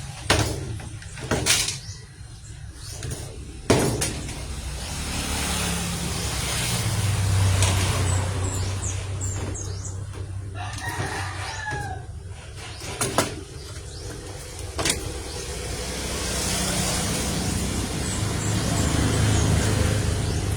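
A steady low rumble like engine noise, broken by a few sharp clicks and knocks, with a short pitched animal call about eleven seconds in.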